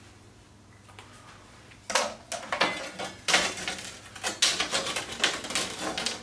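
Metal window trim strips clattering as they are handled, a quick irregular run of clicks and knocks starting about two seconds in.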